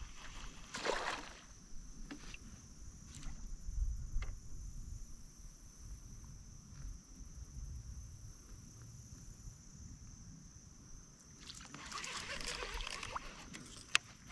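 Water splashing as a hooked bass thrashes at the surface near a kayak: a short splash about a second in and a longer stretch of splashing near the end, with low knocks from the boat in between and a sharp click just before the end.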